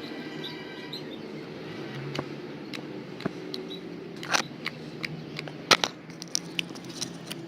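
Clear, thick slime being squeezed and stretched by hand, giving irregular sharp clicks and pops that come more often in the second half, over a steady low hum.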